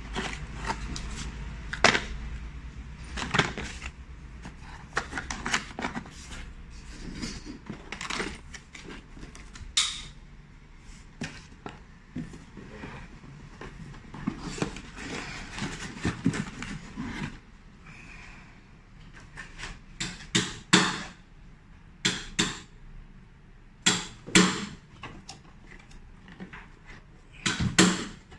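Hands unpacking a cardboard box: irregular knocks, taps and clicks of cardboard inserts and packed parts, with rustling of plastic wrapping between them.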